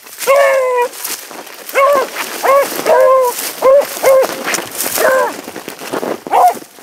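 A hare-hunting hound baying on a hare's track: a longer falling bay about a quarter second in, then a run of about seven short bays spaced roughly half a second to a second apart.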